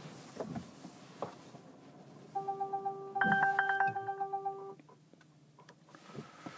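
Polestar 2 reverse-parking warning: quick electronic beeps start about two seconds in and run together with a steady tone, then a louder burst of rapid warning chimes for about a second, all stopping near five seconds in. This is the car's alert as it detects a person near the parking space and brakes automatically while reversing.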